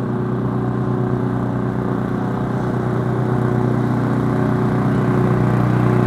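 Walk-behind lawn mower's small engine running at a steady speed as it is pushed across the grass, growing slightly louder as it comes closer.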